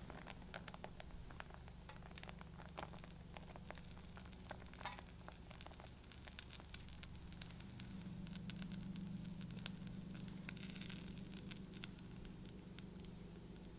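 Faint, irregular small ticks and crackles as shredded cheese is sprinkled by hand onto a tomato-sauced pizza base in a frying pan, over a low steady hum. There is a brief soft rustle about ten and a half seconds in, as mozzarella slices are laid on.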